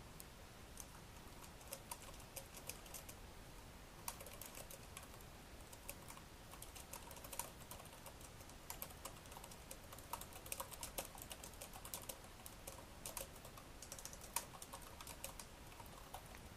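Faint typing on the HP Compaq Presario C700 laptop's keyboard: irregular runs of quick key clicks broken by short pauses.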